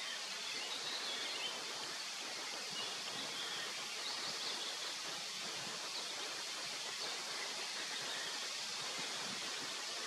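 Steady, even outdoor hiss, with faint high bird chirps now and then.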